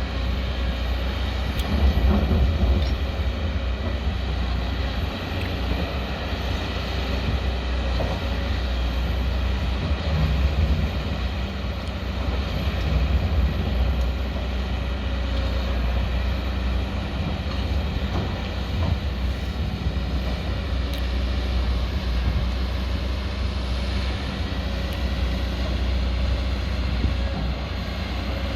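Hydraulic excavator's diesel engine running steadily under working load, with a strong low hum and a few faint knocks.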